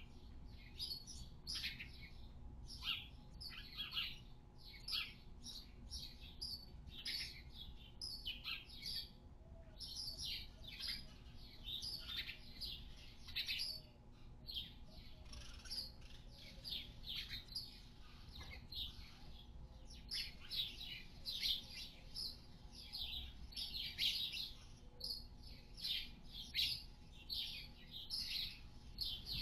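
A flock of small birds chirping and twittering nonstop inside a barn, many short high chirps overlapping several times a second, over a faint steady hum.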